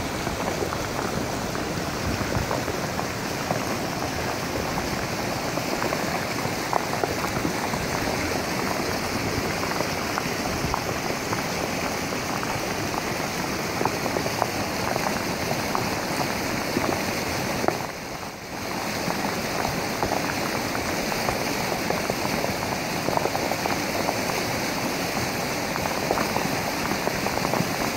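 Flash-flood water rushing down a sandy river channel: a steady rush with many small clicks of rocks knocking together as the flood carries them along the bed.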